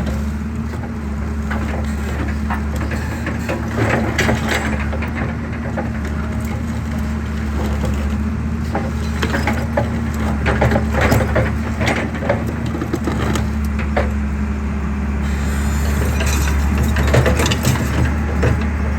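Excavator's diesel engine running steadily under irregular cracking and crunching of concrete being crushed.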